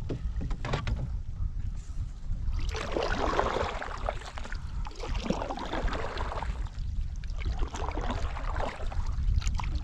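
Wind buffeting the microphone with a steady low rumble, and waves slapping and gurgling against the canoe's hull in swells, with a few sharp knocks near the start and near the end.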